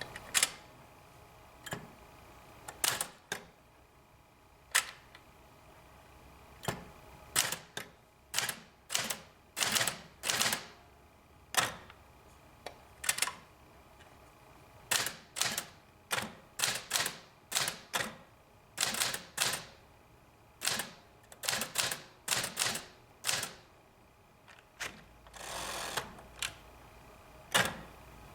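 Sears Forecast 12 manual portable typewriter being typed on: a few dozen sharp key strikes at an uneven pace, some in quick runs, with one longer noisy sound lasting about a second near the end.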